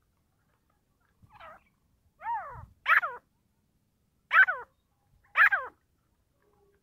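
Caged teetar (grey francolin) calling: five short harsh notes, each sliding down in pitch, spaced about a second apart, the first one fainter.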